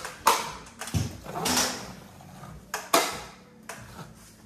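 Drywall knife clacking and scraping against a mud pan while loading joint compound. There are several sharp clacks and one longer scrape about a second and a half in.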